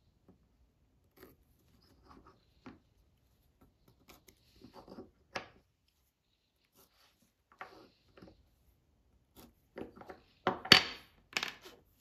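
Faint scratching of a pencil drawing lines across the end grain of a small wood blank against a metal center-finder square, with light clicks of the square being moved. Near the end come a few sharper knocks and clatter as the square and the blank are put down on the wooden bench.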